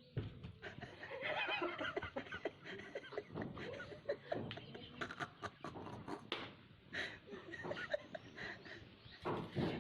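People laughing and snickering, with scattered clicks and knocks.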